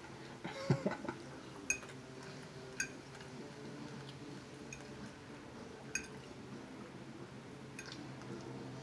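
Metal fork clinking lightly against a plate while gathering noodles: a handful of short, sharp clinks spread out over a faint steady room hum.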